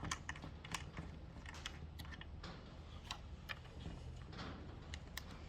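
Faint, irregular light clicks and taps of plastic parts handled as the air filter is taken off a 62cc chainsaw.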